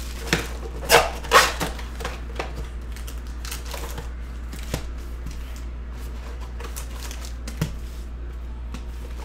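Handling a trading-card hobby box and its foil packs: a few sharp plastic crinkles in the first second and a half, then sparse light taps and rustles as the packs are pulled out and set on the table, over a steady low hum.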